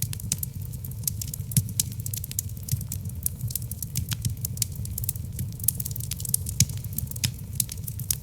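Logs burning in a fireplace, with frequent irregular crackles and pops, several a second, over a steady low rumble.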